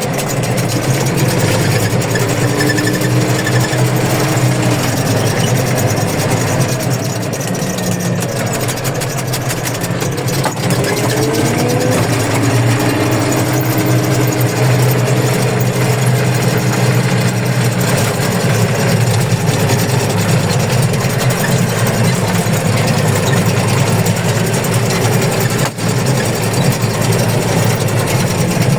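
Tractor diesel engine running steadily during milled-peat harvesting, with a faint whine that rises and falls and comes and goes over it.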